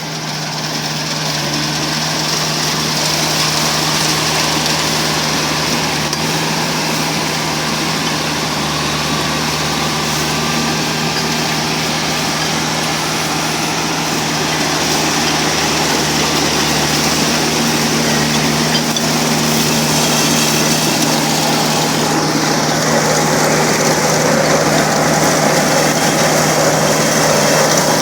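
Kubota R1 301 combine harvester running steadily, its engine droning under a broad mechanical clatter, slightly louder in the second half.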